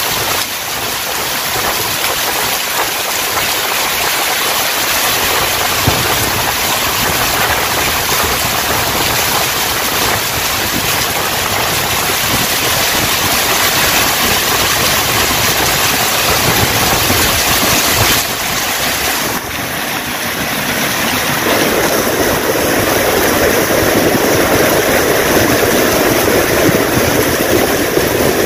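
Heavy tropical downpour: a steady rush of rain pouring down, swelling louder and fuller about two-thirds of the way through.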